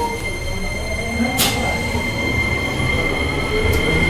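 Nagoya Municipal Subway N3000-series train's Toyo IGBT-VVVF inverter and traction motors whining, the tones slowly rising in pitch as the train pulls away and gathers speed, over a low rumble and a steady high tone. A single sharp click about a second and a half in.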